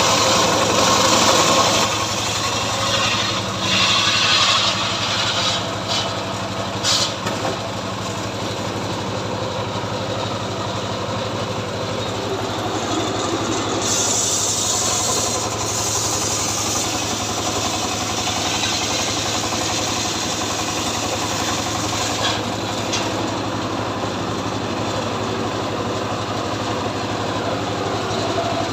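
Chainsaw engine running steadily, with a few short louder spells near the start.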